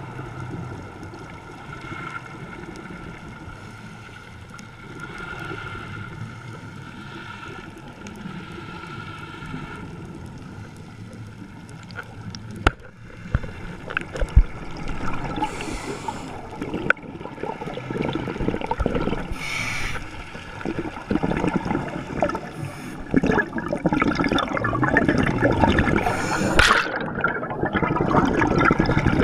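Underwater sound of scuba divers' regulators: exhaled bubbles gurgling and bursting, heard muffled through a GoPro's dive housing. The first half is quieter with a faint steady hum. A couple of sharp knocks come about halfway, and after them the bubble bursts grow louder and come every three to four seconds.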